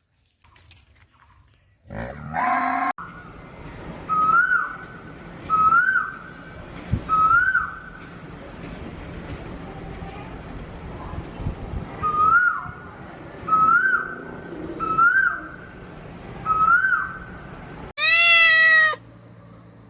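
A cat meowing: a series of short, rising mews repeated about every second and a half, pausing midway, then one loud, longer meow falling in pitch near the end.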